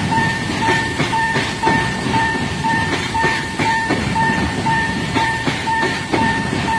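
Japanese level-crossing electronic alarm ringing, a two-note chime repeating about twice a second, while a freight train rolls over the crossing with a low rumble and wheels clicking over the rail joints.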